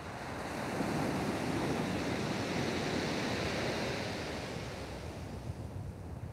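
Surf breaking on a steep shingle beach: the rush of a wave swells about a second in, holds for a couple of seconds and dies away as the water washes back.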